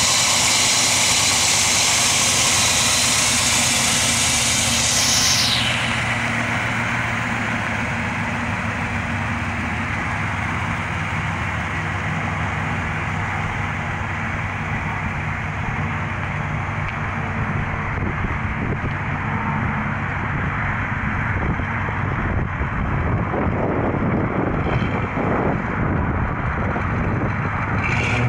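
Corvette V8 engine in a 1934 Packard restomod idling steadily, just after being started. A high hiss laid over it for the first five seconds or so cuts off suddenly, and the idle turns rougher and more uneven near the end.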